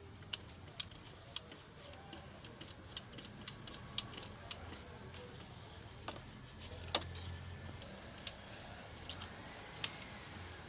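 Metal hand tools clinking and tapping against metal car parts: a dozen or more sharp, irregular clicks, the loudest about a second and a half apart.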